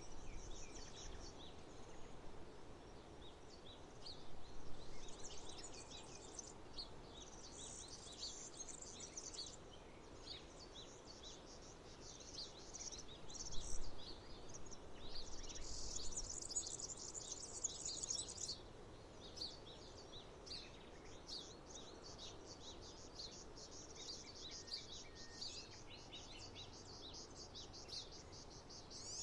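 Songbirds chirping and twittering in a continuous chorus of quick high notes, over a steady low background rumble.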